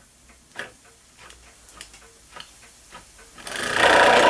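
Mamod ME3 marine steam engine being flicked over by hand, a few light clicks, then catching on steam about three and a half seconds in and running fast with a loud, rapid chuffing rattle.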